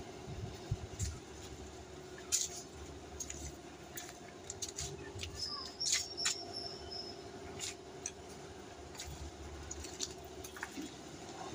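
Faint background sound: a steady low hum with scattered clicks and taps, and a brief high chirp about six seconds in.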